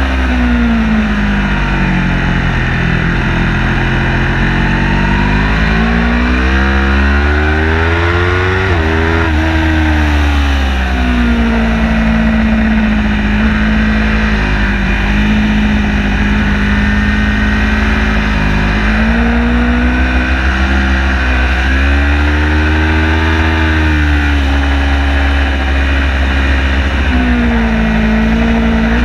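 Car engine driven hard on a circuit lap, its pitch repeatedly rising under acceleration and dropping off when lifting or braking for corners, with a quick jump in pitch about nine seconds in. A steady deep rumble runs underneath.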